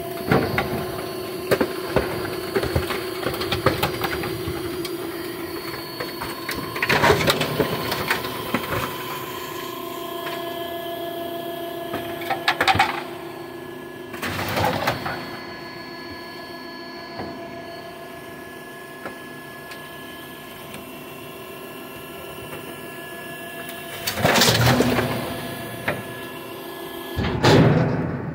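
A hydraulic garbage compactor running with a steady humming whine from its motor and pump while the ram crushes a dresser. The dresser's laminated wood panels crack and crunch, with several louder bursts of breaking spread through.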